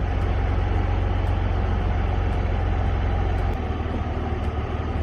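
BMW E46 330i's 3.0-litre inline-six idling steadily with the bonnet up, run to warm up and bleed air from a freshly installed radiator filled with water; its low note shifts about three and a half seconds in.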